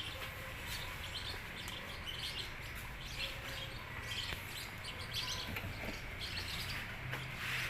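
Faint birds chirping in short, scattered calls over a low background hum.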